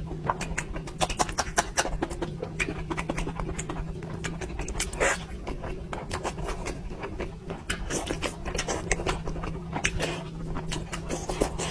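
Close-miked eating sounds: a person chewing and smacking their lips over a mouthful of curry, a quick, irregular run of wet clicks and smacks over a steady low hum.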